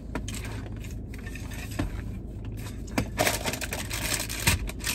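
Thin plastic snack wrapper and tray being handled, crinkling and clicking in scattered bursts, with a denser crackle a little past the middle.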